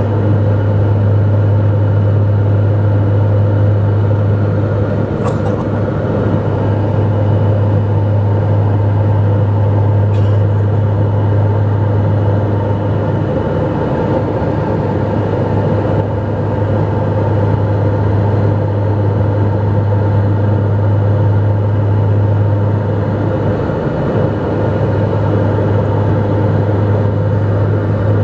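Cabin noise of a Dornier 228 twin-turboprop airliner in flight: a steady low propeller drone with a set of higher steady tones over engine and airflow noise.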